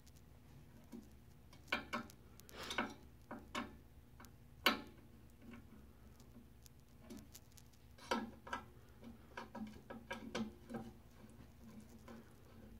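Small screwdriver tightening the screws of a 3D printer's parallel-light module, giving scattered small clicks and ticks at irregular intervals. The sharpest click comes a little before five seconds in, and a cluster follows a few seconds later.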